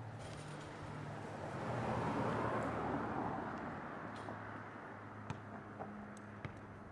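A car passing by: an even rush of noise that swells to a peak a couple of seconds in and fades away. A few faint clicks follow.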